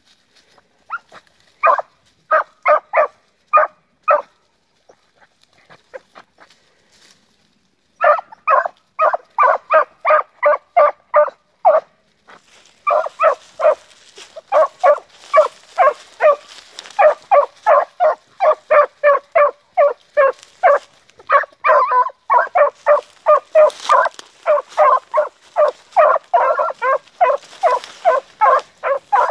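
Young beagle hounds baying as they trail a rabbit: a few barks early, then after a lull, from about eight seconds in, steady barking at two or three barks a second while they run the line.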